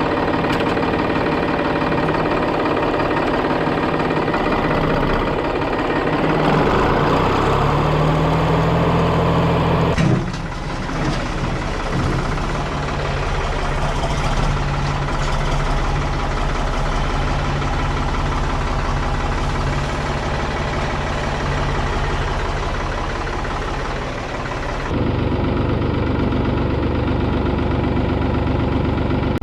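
Tractor engine running steadily. Its pitch rises for a few seconds about seven seconds in, and the sound changes abruptly about ten and twenty-five seconds in.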